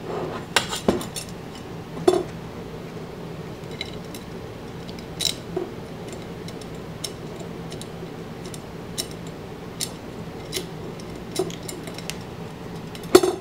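Metal spokes of a BMX wheel clicking and ticking against each other, the hub flange and the rim as they are pulled through and woven over and under while lacing the wheel. Scattered light clicks, a few with a short metallic ring.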